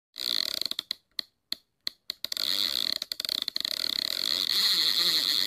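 Logo intro sound effect: a noisy, high-pitched hiss that stutters on and off rapidly for about two seconds, then runs steadily.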